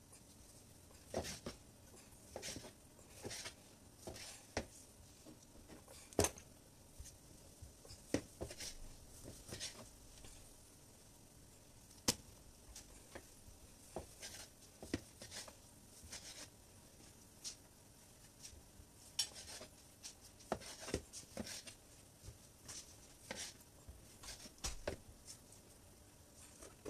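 Kitchen knife cutting cooked cow tripe and cow leg on a cutting board: irregular sharp knocks of the blade on the board, roughly a second or so apart.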